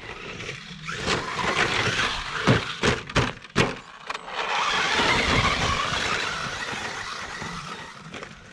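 Traxxas Slash 4x4 electric RC short-course truck driving hard over rough dirt and gravel, tyres scrabbling and throwing dirt. It builds from about a second in, with a few sharp knocks between about two and four seconds in, and fades away near the end.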